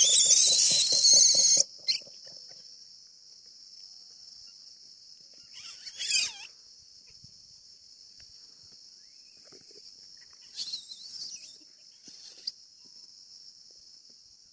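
A young monkey gives a loud, high-pitched scream lasting about a second and a half, then two shorter calls about 6 and 11 seconds in. A steady high drone of insects runs underneath.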